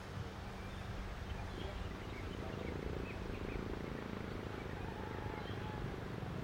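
Outdoor ambience: a steady low hum under faint, scattered bird chirps.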